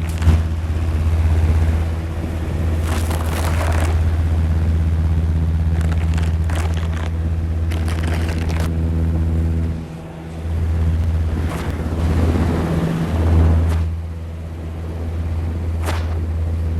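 Film projector sound effect: a steady low mechanical hum with bursts of hiss and occasional clicks. The hum drops out briefly about ten seconds in.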